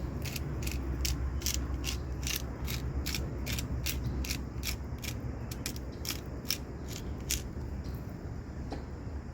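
Salt dispenser worked over the chicken in a quick regular rhythm of sharp clicks, about three a second, stopping about seven and a half seconds in, over a steady low rumble.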